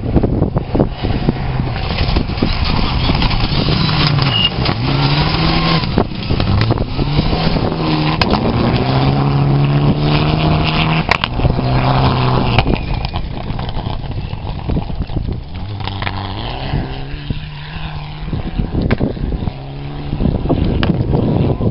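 Rally cars driving flat out on a gravel stage, engines revving high, the pitch climbing and dropping again and again through gear changes. The loudest stretch comes midway as a car passes close; the engine sound fades and another builds up near the end.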